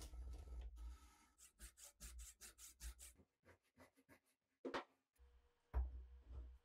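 Hacksaw cutting into a wooden block clamped in a vise, in quick even strokes about five a second, after a brief scraping scratch at the start. Near the end come a sharp knock and a heavier thump.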